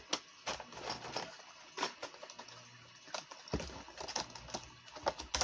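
Scattered light clicks and taps of a fishing lure and its packaging being handled, with a sharper click near the end.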